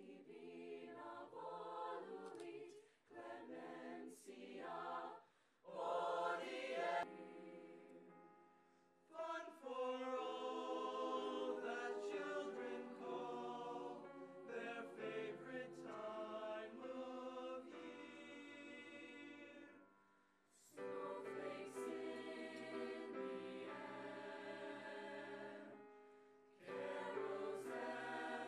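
High-school mixed choir singing in parts. Short, detached phrases come first, then after a brief pause long held chords, with two more short breaks between phrases.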